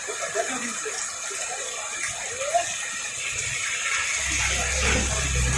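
Heavy rain falling, a steady hiss. About four seconds in, a low rumble comes in and holds.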